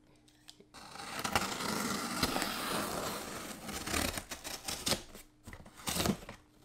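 A knife blade slicing along the packing tape on a cardboard shipping box: one long cut lasting about three seconds, starting about a second in, then a few shorter scrapes and knocks on the cardboard.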